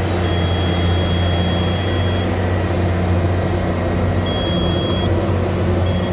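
Komatsu PC400LC-8R excavator's diesel engine running steadily while the cab monitor's alarm buzzer beeps three times, a long beep and then two shorter ones. The alarm signals fault code CA3131: the newly fitted fuel control dial is reading below its range.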